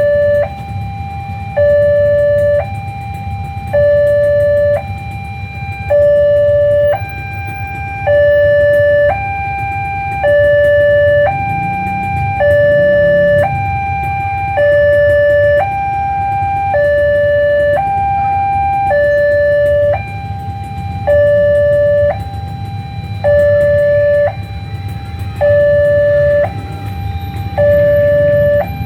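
Railway level-crossing warning siren sounding two steady tones that alternate high and low, each held about a second, with the lower tone louder. It is the warning sounded while the crossing gate is closed. A steady low rumble runs underneath.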